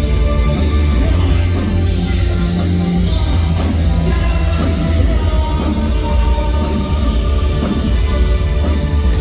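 Live industrial music with heavy sustained bass, played loud through a concert PA and heard from within the crowd.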